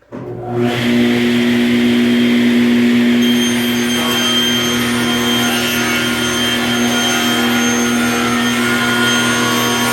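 Table saw of a Hammer C3-31 combination woodworking machine starting up, spinning up to speed within about a second and running with a steady whine, then ripping a board to width. About three seconds in the sound grows busier and brighter.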